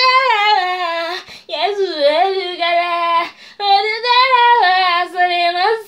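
A woman singing a Yoruba praise and worship song, unaccompanied, in long held and sliding notes, with short breaths about a second in and again past the middle.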